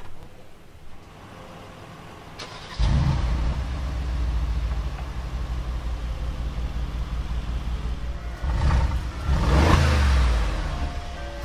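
Mercedes-Benz G500 4x4²'s 4.0-litre twin-turbo V8 starting up about three seconds in with a loud flare, then running at a steady idle. It is blipped twice near the end, the second rev higher.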